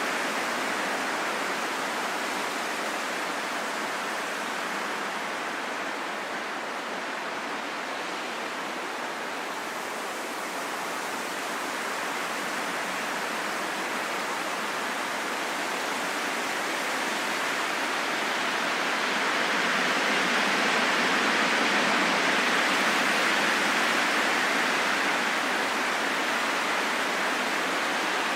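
Wind blowing with a steady, even rush that swells louder about two-thirds of the way through, then eases slightly.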